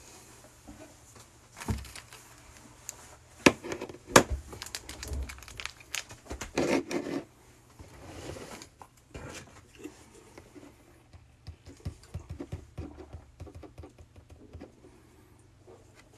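Scattered clicks, taps and knocks of handling out of sight, with sharp knocks about two, three and a half and four seconds in, and a short crinkling in the middle.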